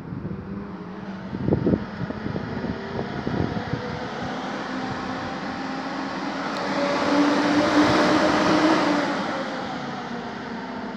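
Electric fan running steadily off a solar-charged battery through an inverter, with a steady hum. A broad whooshing swell rises and falls, loudest about eight seconds in.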